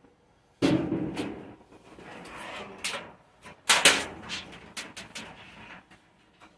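Clattering and knocking of things being handled and moved: a sudden clunk about half a second in, then scattered sharp knocks, the loudest burst of them just before the middle.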